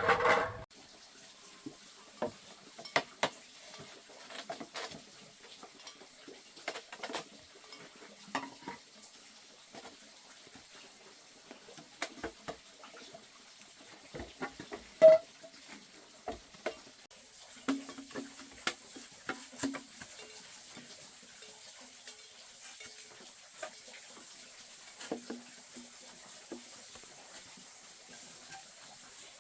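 Scattered light clicks, taps and clinks at irregular intervals, with a louder clatter right at the start and one sharp knock about halfway through.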